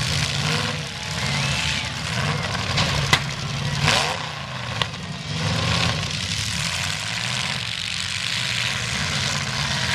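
Demolition derby cars' engines running and revving, rising and falling in pitch. Sharp bangs of cars colliding about three and four seconds in, with a smaller knock near five seconds.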